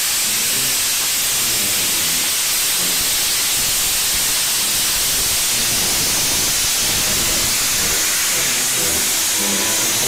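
Beyer-Garratt AD60 steam locomotive 6029 moving slowly with its cylinder drain cocks open, venting a loud, steady hiss of steam.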